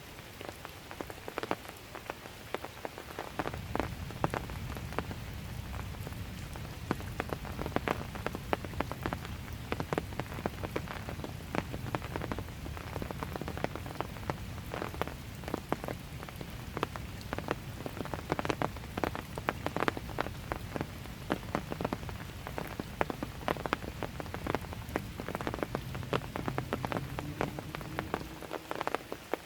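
Steady light rain with many separate drops striking close by, each a sharp tap. A low rumble joins about three seconds in and fades out near the end.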